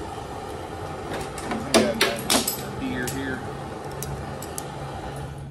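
Small handheld propane torch burning with a steady hiss, shut off near the end. A few sharp clinks and knocks about two seconds in, as hands work the welder's gas-hose barb fitting.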